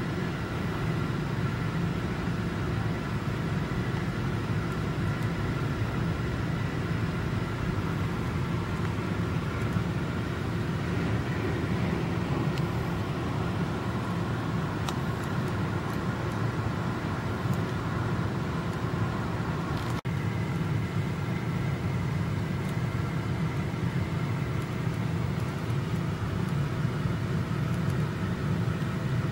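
Steady city street ambience: a constant low hum of distant traffic, with a brief dropout about two-thirds of the way through.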